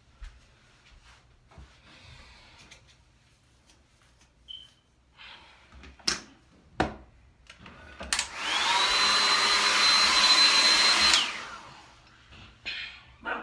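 A handheld hair dryer is switched on about eight seconds in and runs loud for about three seconds. Its motor whine rises as it spins up and falls away when it is shut off. A few sharp knocks come shortly before it.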